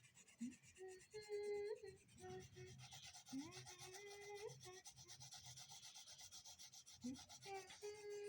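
Rapid back-and-forth strokes of a colouring tool rubbing on paper, faint and steady, as a drawing is coloured in. A few soft hummed notes come and go over it.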